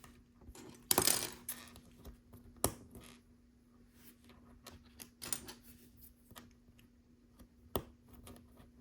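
Plastic LEGO pieces clicking and clattering as they are handled and pressed together, with a rustling shuffle about a second in and several sharp clicks after it, over a faint steady hum.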